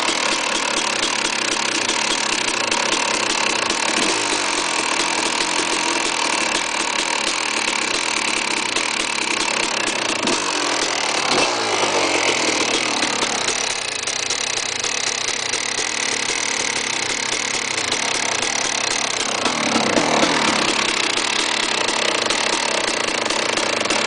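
KTM 380 SMR's engine running at idle, with the engine speed shifting briefly about ten seconds in and again about twenty seconds in. The engine is making a noise that the owner considers bad.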